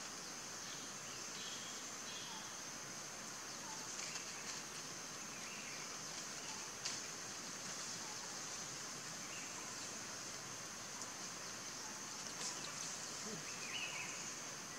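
Woodland ambience: a steady high-pitched insect drone, with faint scattered bird chirps and a few small ticks and rustles.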